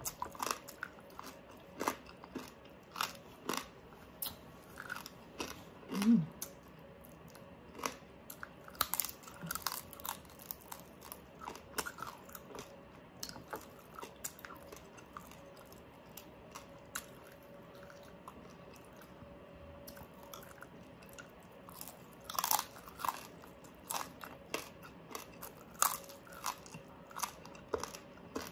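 Close-miked chewing and crunching of crispy pata, oven-baked pork knuckle with crackling skin, in sharp separate crunches that thin out in the middle and pick up again later. One brief louder low sound comes about six seconds in.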